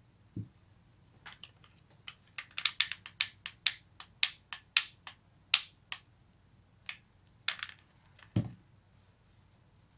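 Hot glue gun trigger clicking repeatedly as glue is fed: a run of about twenty sharp clicks over some six seconds, fastest in the middle. A low thump sounds near the start and another near the end.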